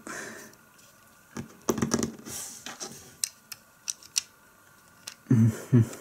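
Plastic LEGO bricks clicking and tapping as the puzzle box is handled and its pieces are moved. Scattered sharp clicks, with a quick cluster about two seconds in.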